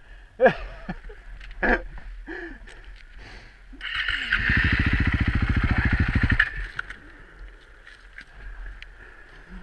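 Dirt bike's engine running for about three seconds, starting about four seconds in, with a steady rapid pulse and a hiss over it while the bike sits stuck in a mud hole. A couple of sharp knocks and short voice sounds come before it.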